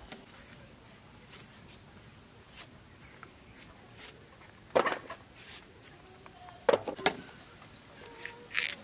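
A few scattered sharp knocks and clicks over a quiet background, with four louder knocks in the second half.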